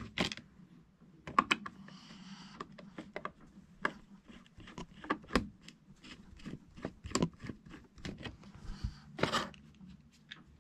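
Many sharp plastic clicks and taps, with short scrapes, as a screwdriver works the plastic fan shroud loose from a DeWalt DW735 planer motor. A longer scrape about nine seconds in as the shroud half is pulled off.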